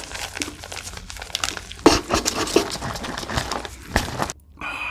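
Crisp Korean fried chicken crust crunching as it is bitten and chewed close to the microphone: a dense run of small crackles with a few sharper snaps.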